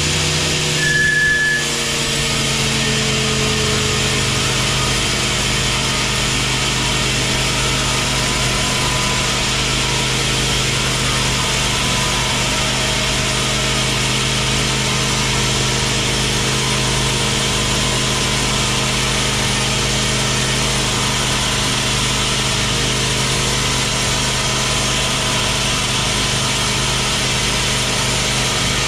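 Sawmill band saw cutting a large teak log on a moving carriage: a steady mechanical hum with the hiss of the blade through the wood. About a second in there is a brief high squeal, and the hum sags slightly in pitch before running steady.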